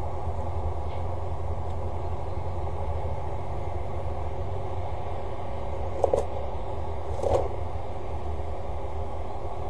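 Steady low hum and rumble, with two short knocks, one about six seconds in and one about seven seconds in.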